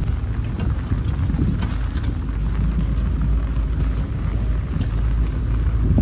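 Jeep driving along a rough, wet gravel track: a steady low rumble of engine and tyres.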